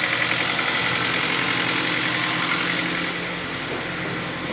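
Kia Ceed's 1.4-litre G4FA four-cylinder petrol engine running steadily with a diesel-like clatter. The knock is typical of worn pistons and bearings in a high-mileage engine that burns oil, a little quieter near the end.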